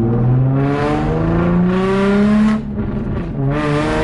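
Nissan 350Z's V6 engine accelerating, its note rising steadily for about two and a half seconds. It drops briefly at a gear change, then rises again near the end.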